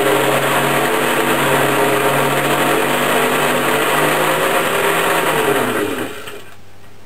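The small electric motor and gearbox of a Lionel Burro crane running with a loud mechanical whine. Its pitch sags and it stops about six seconds in, leaving a faint low steady hum.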